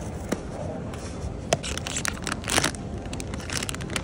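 A Pop Mart Skullpanda blind box being opened by hand: a few sharp clicks and taps as the box is handled, then the crinkling and tearing of its foil inner bag. A steady low background rumble runs underneath.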